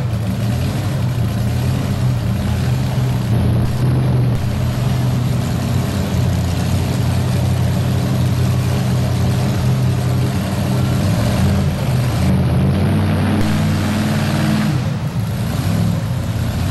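Supercharged engine of a Chevrolet two-wheel-drive pulling truck idling steadily after its pull, its note shifting slightly near the end as the truck moves off.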